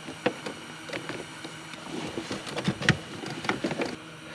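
Scattered clicks, knocks and rustling of hands and a hand tool working a hose and hose clamps onto a plastic Mazzei ozone injector, with a sharper click about a third of a second in and another near three seconds.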